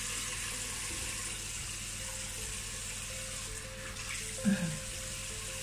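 Tap water running steadily into a bathroom sink as hands lather a bar of soap under the stream. A short vocal sound comes about four and a half seconds in.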